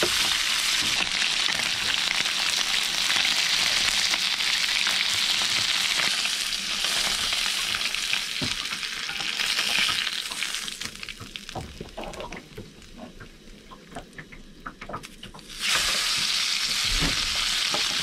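Skin-on sea bream fillets sizzling in hot oil in a frying pan, a dense steady crackle. About ten seconds in the sizzle falls away to scattered pops for several seconds, then comes back at full strength suddenly.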